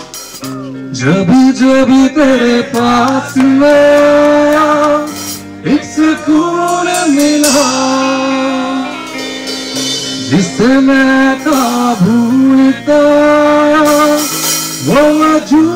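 Live band: a male singer sings long, held notes, sliding between them, over electric guitar and drum kit.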